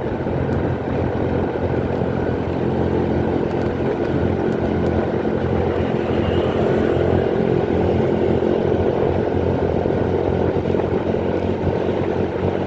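Motorcycle engine running steadily while riding, with road noise underneath.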